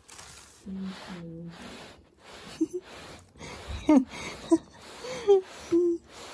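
A person making soft, breathy coaxing sounds and short hums and calls to a kitten hiding under a bed, in short separate bursts; one call falls in pitch about four seconds in.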